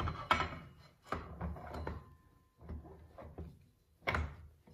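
Metal parts clunking and scraping inside a Mopar 904 automatic transmission case as a part is worked by hand back onto the input shaft, with a sharp knock at the start and a few shorter clunks after.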